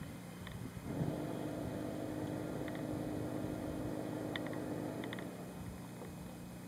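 A steady mechanical hum, engine-like, with a held low tone that swells about a second in and fades after about five seconds. A few short, faint high chirps sound over it.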